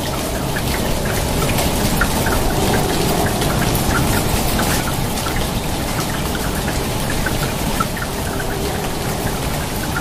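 Steady rain splashing onto water: an even hiss with many individual drops plinking through it.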